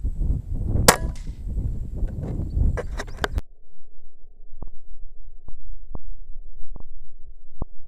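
A single sharp metallic clang that rings briefly, about a second in, over a rough low rumble that cuts off suddenly about three and a half seconds in; after that, only a few faint clicks.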